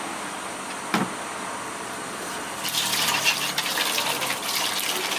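Water running from a tap into a stainless-steel washing-up bowl, with a single sharp knock about a second in; from about halfway through the splashing gets louder as hands work in the water.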